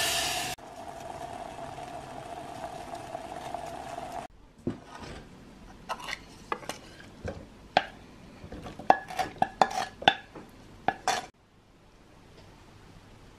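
A steady hiss, then a saucepan and metal tongs knocking and clinking against a stainless steel mesh sieve as syrup-cooked candied orange peel is tipped in to drain: a string of sharp, ringing metal clinks that stops suddenly near the end.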